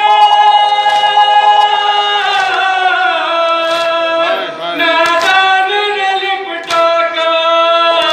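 A group of men chanting a Muharram noha (mourning lament) in unison, holding long, drawn-out notes that slowly step up and down in pitch, with a few sharp hits breaking in.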